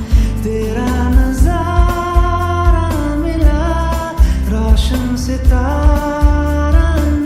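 Bollywood pop song: a held, gliding sung melody over deep bass hits and percussion, with added hall reverb.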